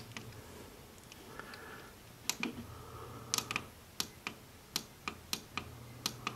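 Buttons of a Lutron Caseta wall-mounted fan speed controller being pressed: about a dozen sharp plastic clicks, irregularly spaced, starting about two seconds in.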